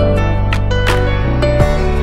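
Background music: sustained instrumental notes with a few sharp strikes.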